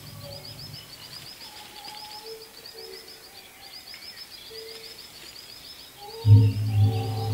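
Birds chirping in short repeated high trills, over faint held musical tones. About six seconds in, a loud deep sustained note comes in.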